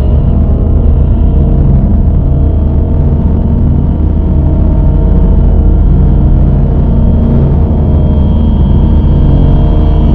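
Dark ambient drone music: a loud, dense low rumble under layers of held tones, with no beat.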